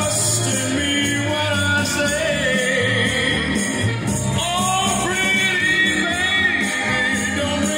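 Music playing from a vinyl record on a direct-drive turntable: a pop song with its band, and melody lines bending in pitch, heard at a steady level.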